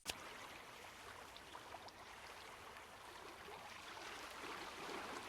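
Steady rush of flowing water, with small scattered ticks and a sharp click at the very start.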